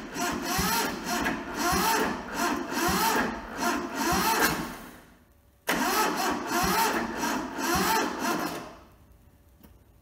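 Toyota SDK4 skid steer's diesel engine cranked on the starter motor twice, a long spell and then a shorter one, each trailing off as it slows, without the engine catching: the battery is running down.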